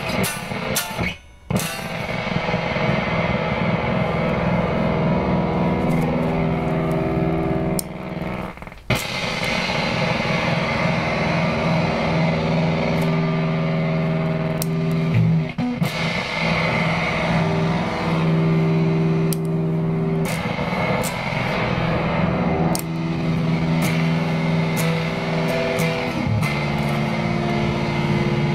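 Electric guitar played through Fairfield Circuitry effects pedals: long held notes ringing out, with brief breaks about 9 and 15 seconds in.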